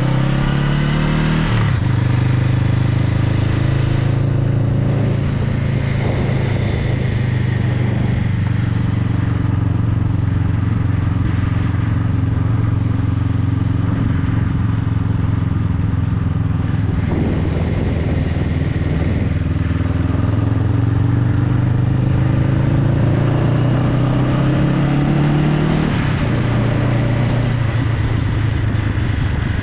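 Honda Rebel motorcycle engine running while riding: its pitch climbs and drops sharply as it shifts gears at the start, then holds at a steady cruise with slow rises and falls in revs.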